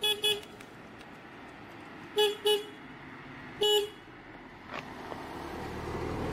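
Vehicle horn honking: two quick short beeps, two more about two seconds later, then one longer beep. Near the end a vehicle approaches, its noise growing louder.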